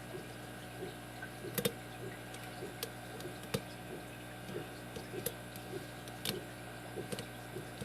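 Lock pick and tension wrench working the pin tumblers of a five-pin brass padlock: scattered faint ticks with a few sharper clicks, as the pins are set again after the false set was lost. A steady low hum runs underneath.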